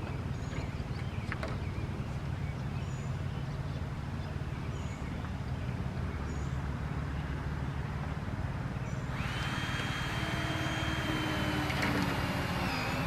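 A steady low hum with faint high chirps; about nine seconds in, a power tool starts with a steady high whine and hiss, runs for about four seconds and winds down near the end.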